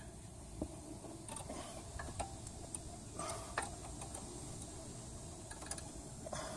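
Scattered light metallic clicks and ticks as brake pads and their spreader springs are handled and pressed into the abutment clips of a Nissan Rogue front caliper bracket.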